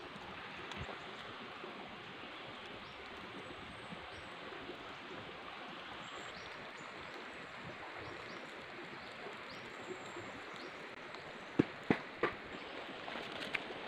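Steady outdoor background hiss with faint, short, high chirps. Near the end come three sharp snaps in quick succession, then a few smaller clicks.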